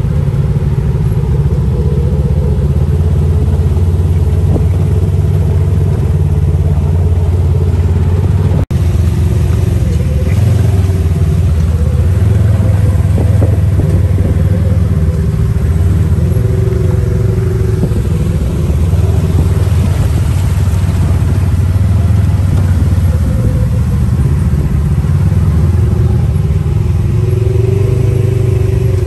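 Engine of an off-road side-by-side buggy running steadily while driving along a dirt road, heard from inside the open cab. The sound drops out for an instant about nine seconds in.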